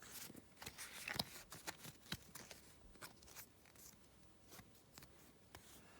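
Faint, irregular flicks and soft rustles of Pokémon trading cards being handled and slid past one another.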